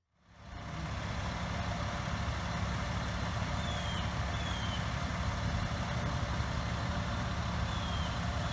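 Large truck engine running steadily with a low hum, with a few faint short high chirps over it.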